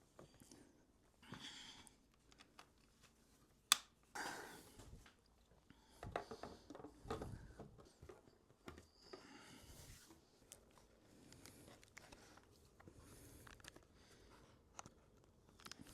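Quiet hand-work sounds while parts are fitted: scattered light clicks and short rustling scrapes, with one sharp click about four seconds in.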